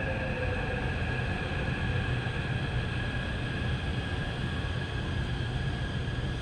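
Taipei Metro C371 electric train pulling into a station: a steady low rumble of wheels and running gear under a high, steady whine.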